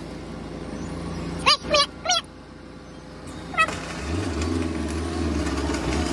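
Farm loader's engine running, heard from inside its cab, picking up and running harder about four seconds in. Four short, sharp squeals that sweep up and down in pitch cut through between about one and a half and three and a half seconds in.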